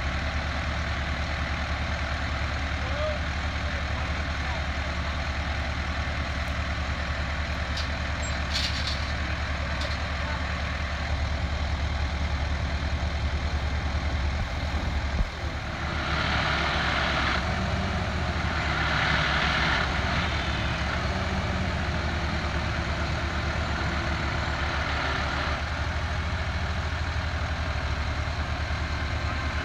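Heavy diesel truck engine idling steadily. About halfway there is a short sharp knock, followed by several seconds of louder hissing in two or three stretches.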